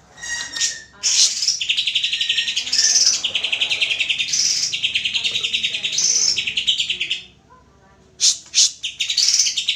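Greater green leafbird (cucak ijo) singing: rapid, buzzy chattering trills in phrases of a second or so. A short pause comes about three-quarters of the way in, then two sharp notes, and the trilling starts again.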